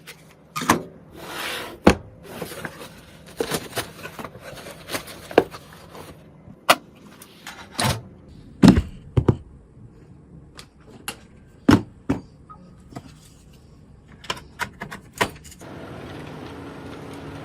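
Computer parts being handled and fitted during a PC build: irregular sharp clicks and knocks of plastic and metal with some scraping, then a steady even hum starting near the end.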